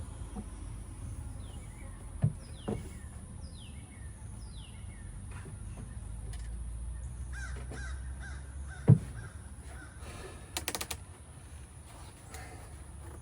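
A bird calling repeatedly: four short falling calls, then a quicker run of short calls. A few knocks sound under it, the loudest about nine seconds in, followed by a brief rattle.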